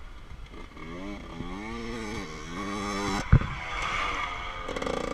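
Motocross dirt bike engine revving up and down as it rides, the pitch rising and falling over and over. A single sharp knock about three seconds in.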